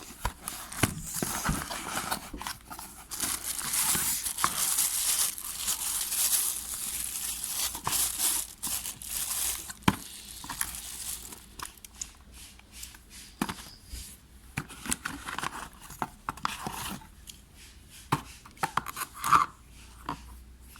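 Packaging being torn open and crinkled by hand: dense tearing and rustling for the first ten seconds or so, then scattered crinkles and clicks.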